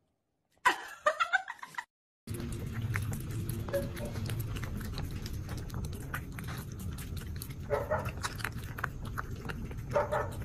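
A cat eating from a bowl: steady chewing with many small clicks, broken twice near the end by short vocal sounds. Before it, about a second in, there is one brief vocal sound.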